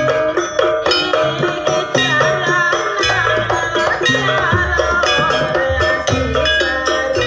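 Jaranan gamelan ensemble music: drums and struck gongs and metallophones in a steady rhythm, with a high wavering melody over them through the middle.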